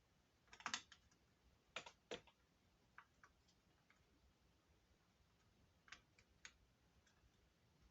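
Faint, scattered small clicks and taps in a few clusters from a laptop RAM module being handled and pushed into its memory slot.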